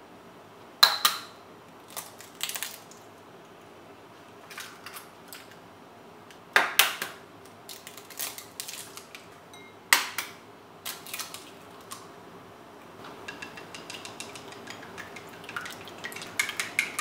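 Eggs cracked one after another against the rim of a ceramic bowl: three sharp taps, the first about a second in and two more a few seconds apart, with lighter shell crackles between. Near the end the eggs are beaten with wooden chopsticks, a fast run of light clicks against the bowl.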